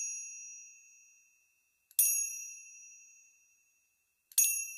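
A small bell struck at an even pace: one ring is already fading at the start, then two more strikes about two seconds in and near the end. Each rings with a clear high tone and fades away.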